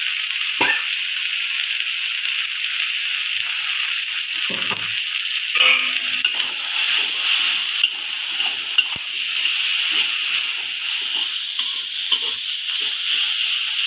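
Instant noodles and vegetables sizzling in oil in a wok, stirred and tossed with a metal spatula. The spatula scrapes and clicks against the pan now and then over the steady frying hiss.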